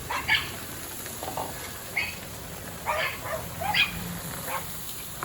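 A series of short, sharp animal calls, some in quick pairs, about eight or nine over five seconds.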